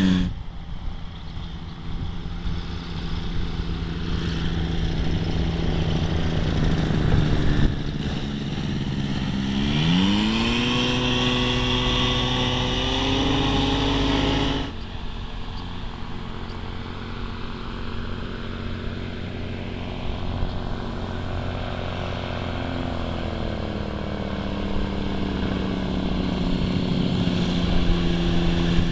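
Quicksilver MX ultralight floatplane's two-stroke engine and propeller running as it skims along the pond surface. The engine note drops at the start, then rises sharply as the throttle is opened about ten seconds in. The sound cuts off abruptly about halfway through and resumes as a lower, steady engine note that climbs again near the end.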